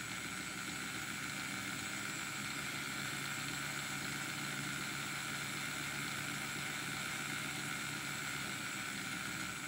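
Motor and gears of a DCC-fitted Hornby 0-4-0 diesel shunter model running steadily with a noisy rattle, typical of its older-type motor.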